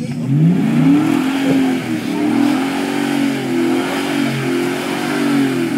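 The 5.3-litre V8 of a 2014 Chevrolet Silverado Z71 4x4 revving hard under load as the truck works its way out of mud. The revs climb over the first second, then rise and fall unevenly while the throttle is held.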